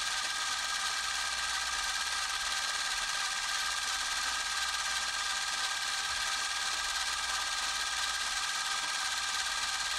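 A small motor running with a steady whirr, several even tones over a hiss, with no change in speed.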